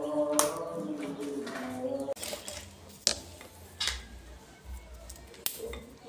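A few sharp metallic clicks and snips of combination pliers cutting and stripping an electrical cable, spaced a second or so apart. A pitched sound under the first two seconds stops about two seconds in.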